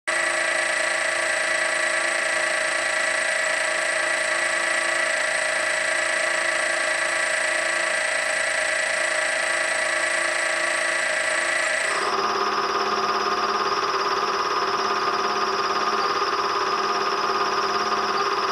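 Steady held tones at several pitches at once, like a sustained drone chord, switching to a different set of pitches about twelve seconds in.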